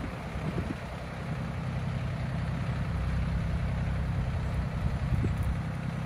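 Yanmar YM1802 compact tractor's diesel engine running steadily under the load of a single-furrow plough cutting a furrow, with a low, even hum.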